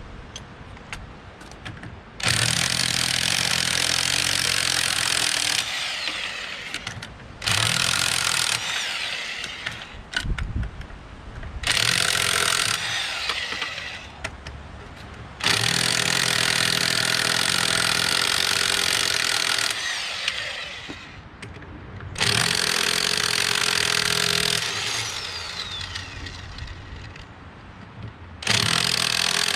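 Impact wrench hammering on rusted wheel nuts, in about six bursts of one to four seconds each with short pauses between.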